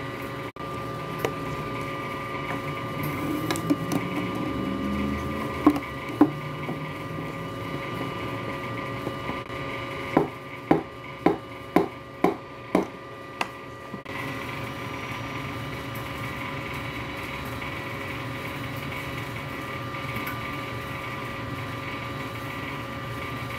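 Steady machine hum with several held tones. Two sharp knocks come about a quarter of the way in, and a quick run of about seven sharp wooden knocks, roughly two a second, a little before the middle, while latte art is etched with a wooden stick.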